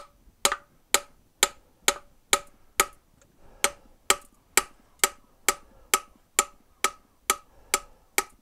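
Steel drift, a seal-positioning tool used upside down, being struck repeatedly to knock a roller bearing out of a tractor PTO's cast-iron housing. Sharp metallic blows come about two a second, each with a brief ring.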